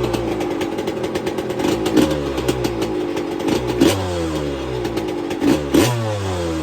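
Yamaha YZ125 single-cylinder two-stroke engine with a 144cc big-bore kit, running on its first start after a full restoration. The throttle is blipped four times, the revs shooting up and falling back to a rough idle each time.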